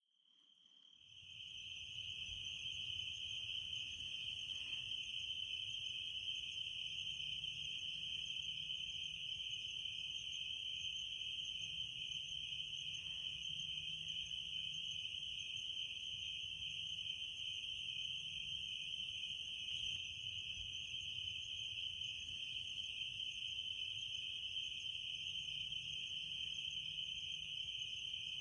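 Night insects, crickets, trilling in a steady, unbroken high-pitched chorus that fades in over the first second or two.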